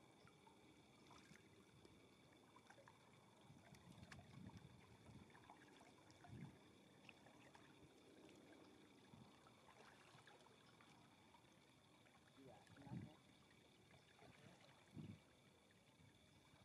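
Faint sounds of a canoe being paddled: a few soft paddle splashes and water swishes, the clearest near the middle and two near the end, over a faint steady high hum.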